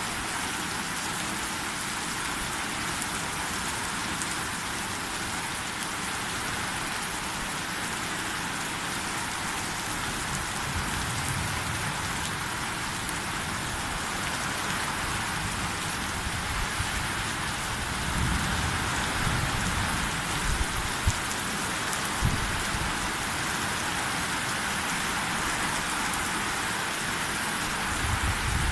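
Heavy rain falling in a steady, dense hiss. Low rumbles come and go beneath it, strongest about two-thirds of the way through and again near the end.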